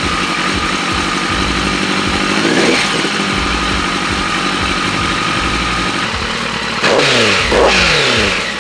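The Rage Comet R buggy's Kawasaki 1400 cc inline-four engine idles while warming up after a cold start, with a short blip of the throttle about two and a half seconds in. In the last two seconds it is revved sharply a couple of times, the revs falling back each time.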